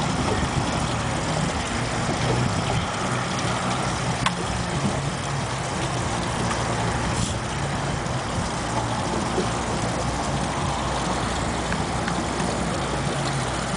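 A boat's engine idling with a steady low hum under a constant hiss.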